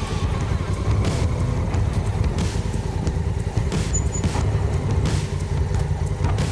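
Honda CRF1000L Africa Twin's parallel-twin engine running steadily at low revs as the motorcycle creeps at walking pace and stops.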